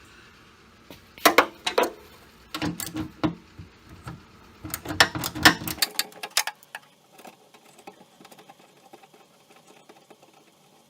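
Ratchet wrench clicking in three short bursts, backing off the 8 mm nut that holds a Jeep door handle; after about six seconds only faint light ticks remain.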